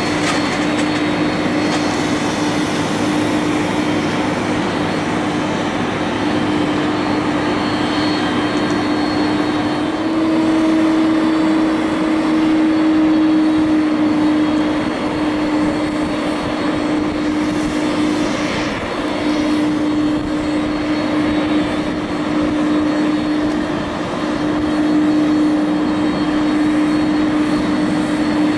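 Aircraft engines running steadily: a continuous loud drone with a steady low hum that shifts slightly in pitch about a third of the way through.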